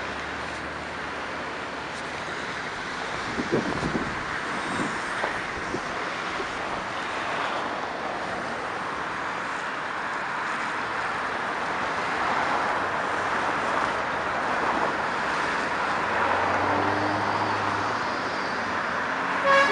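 Steady traffic noise of cars driving past on a wet, slushy road, with a few light knocks about four seconds in and an engine hum swelling near the end. A vehicle horn starts sounding right at the very end.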